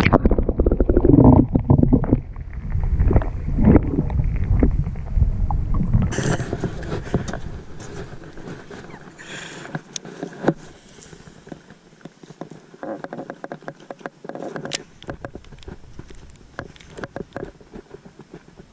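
Low rumbling wind and handling noise on a small camera's microphone with scattered clicks and knocks, loud for the first several seconds and growing quieter after about eight seconds.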